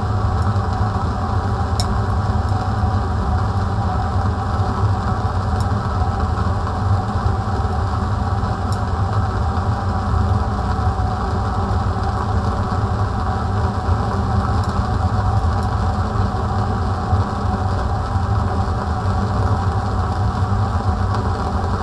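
Steady hum of a fume cupboard's extraction fan, together with the flame of a lit Bunsen burner, with a few faint ticks.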